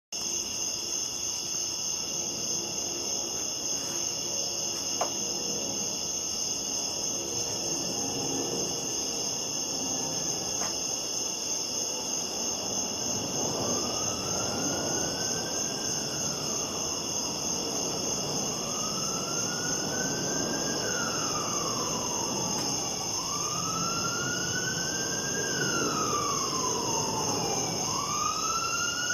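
Steady high-pitched chorus of insects throughout. About halfway in, an emergency vehicle siren starts up in slow rising-and-falling wails, several in a row, getting louder near the end as it approaches.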